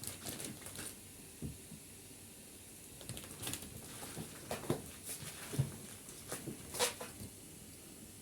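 Scattered handling noises: brief rustles, light taps and a few soft thuds at irregular intervals, busiest in the second half, over a faint steady hiss.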